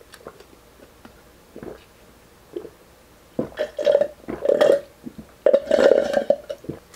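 A man drinking from a glass, with loud throaty gulping sounds in two stretches, about three and a half and five and a half seconds in.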